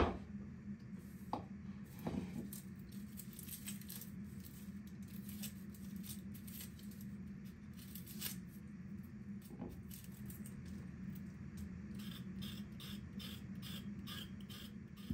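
A wooden bowl is set down on a wooden cutting board with a knock, followed by scattered small scrapes and clicks as an onion is peeled with a small knife. Near the end comes a run of quick scraping strokes, about three a second, as a carrot is peeled. A low steady hum sits underneath.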